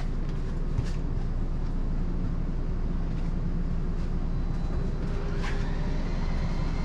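Motorhome bedroom slide-out extending: its electric motor runs as a steady low rumble, with a faint whine coming in about five and a half seconds in.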